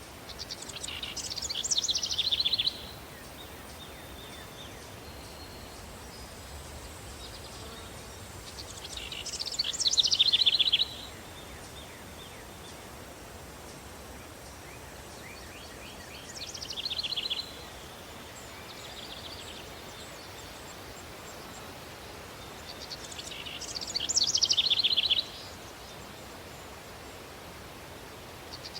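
Outdoor ambience recording: a songbird sings a phrase of rapid high notes that fall in pitch and swell before stopping abruptly, four times about seven seconds apart, over a steady breeze.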